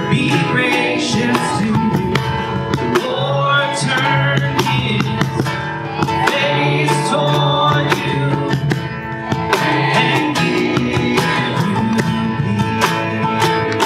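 Live worship band playing a song: an acoustic guitar strummed, a Meinl cajón keeping a steady beat, and voices singing.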